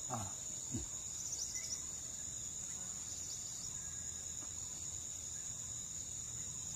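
Steady high-pitched chorus of crickets or similar insects, a continuous shrill buzz with small chirping pulses over it. Two short downward-sliding sounds come in the first second.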